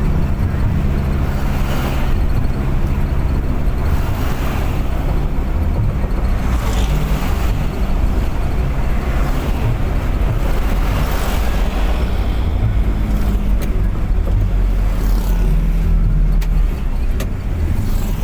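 Car engine running steadily with constant road noise while driving at speed. The noise swells briefly every few seconds.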